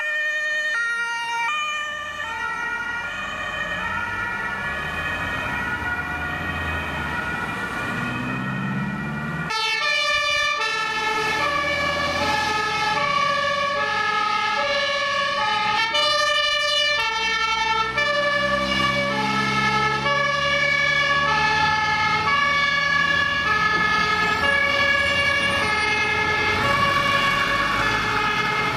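German two-tone emergency-vehicle sirens (Martinshorn), alternating high and low notes, with more than one siren overlapping. A little under ten seconds in the sound changes abruptly to a fire engine's two-tone horn, joined by its diesel engine revving up as the truck pulls away.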